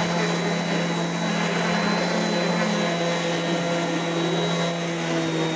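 A 5-inch electric random orbit sander running steadily with a constant hum, sanding a flat oak cabinet surface.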